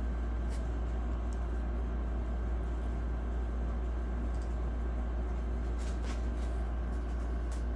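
A steady low hum with a faint hiss over it, unchanging throughout, with a few faint clicks scattered through it.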